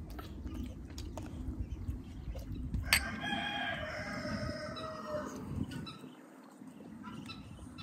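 A rooster crowing once: a single long call of about two seconds that falls slightly at the end.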